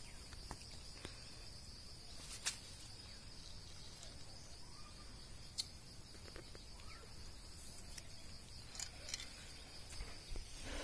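Insects keep up a steady high-pitched drone, with a few sharp clicks.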